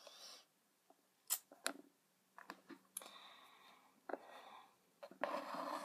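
Faint handling noise from plastic toy figures being moved by hand: scattered light clicks with soft rustling in between.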